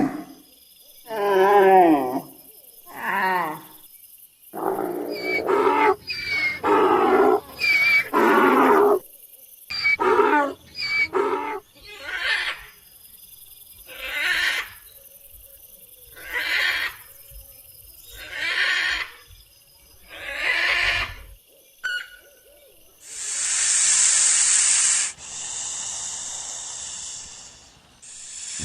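A run of about a dozen animal calls, each half a second to a second long with a wavering pitch, followed near the end by two long stretches of hissing noise.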